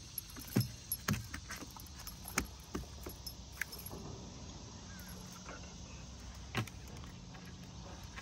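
Irregular light clicks, taps and rattles of hook, line and tackle as a small striped bass held in a towel is unhooked on a boat deck, over a faint steady hum.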